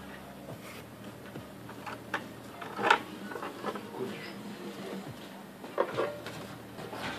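Paper rustling and scraping as a pet rat moves about inside a desk file holder stuffed with papers, carrying a dough ring in its mouth. There are irregular rustles and small knocks, the loudest about three seconds in and again around six seconds, over a faint steady hum.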